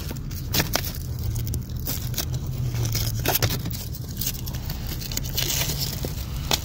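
A seat cover's Velcro strap and fabric being worked under a truck seat: rustling and scraping against the seat frame and carpet, with scattered clicks and taps, over a steady low hum.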